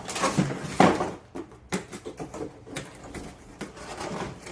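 Rustling and scraping of packaging as a new saucepan is unboxed, with small clicks of handling and a louder knock just under a second in.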